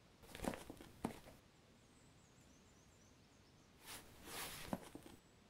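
Hands handling objects in a wooden chest and lifting out a plastic first-aid case: a short rustle and a light knock in the first second, then a longer rustle with a knock near the end.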